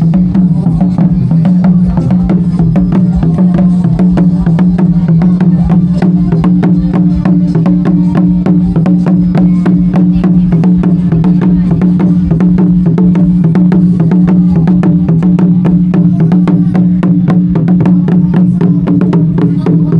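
Loud music: a fast, even drumbeat of about four to five strikes a second over a steady low drone.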